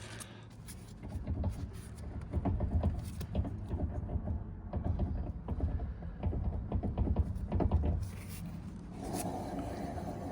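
Rumbling and droning inside a car at speed, with irregular knocks over the first several seconds, then a steadier hum from about nine seconds in. The uploader gives this droning as the sign of a failing wheel bearing.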